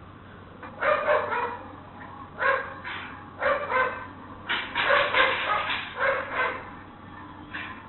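A dog barking repeatedly in short bursts, several barks a second in groups, heard through a security camera's live audio feed.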